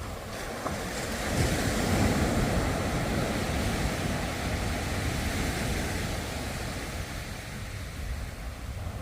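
Ocean waves: a wave breaks about a second in and swells into a loud rushing wash, which slowly fades as the water runs back.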